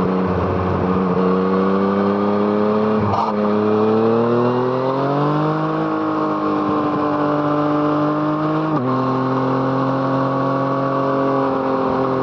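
Yamaha MT-09's three-cylinder engine through an Arrow Thunder exhaust, accelerating under load: the engine note climbs, shifts up about three seconds in, climbs again, then drops with a second upshift about nine seconds in and runs on at steady revs.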